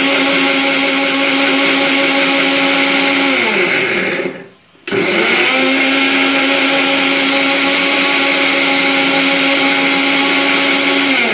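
Electric mixer grinder with a steel jar grinding onion, ginger, garlic and chillies into a wet masala paste. The motor runs at a steady high speed, winds down and stops about four seconds in, starts again half a second later, and winds down again near the end.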